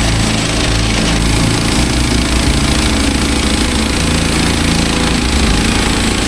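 Engine of a Woodland Mills HM 130 Max bandsaw sawmill running steadily, its low note shifting slightly around four seconds in.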